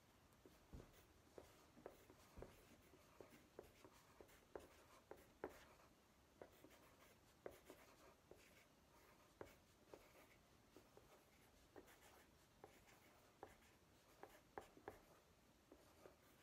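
Faint scratching of pencils on paper as children draw, in short, irregular strokes.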